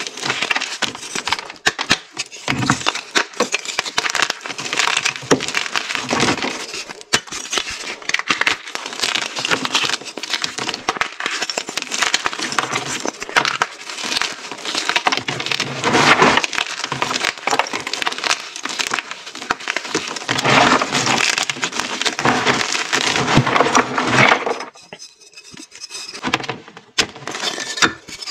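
Hard pink-dyed gym chalk blocks crushed and crumbled in bare hands, giving dense crunching and crackling as the pieces snap apart. The crunching eases off briefly about three-quarters of the way through, then starts again.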